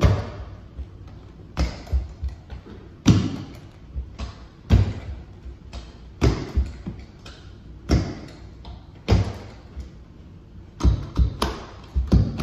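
Repeated thuds of a carpet-fitting tool being driven against a carpeted stair as the carpet is set into the step, about one every second and a half, coming quicker near the end.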